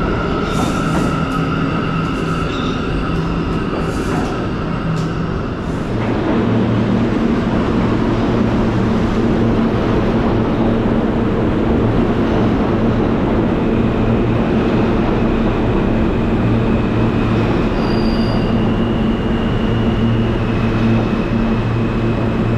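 New York City subway train moving along a station platform: wheel and rail noise with high scraping squeals in the first few seconds. After an abrupt change about six seconds in, a train runs alongside with a steady low motor hum, and thin high wheel squeals come and go in the later part.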